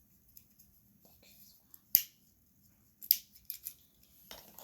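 Plastic clicks from a fidget pad being played with: scattered faint clicks, one loud sharp click about two seconds in, then a quick run of three or four clicks about three seconds in.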